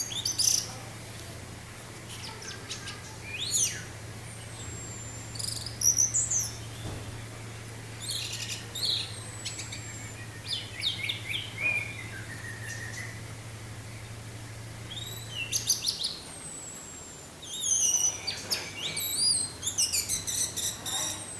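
Orange-headed thrush singing at full tilt in varied phrases of high sweeping and falling notes and quick repeated notes, with short pauses between phrases. A faint low hum runs underneath and stops about three-quarters of the way through.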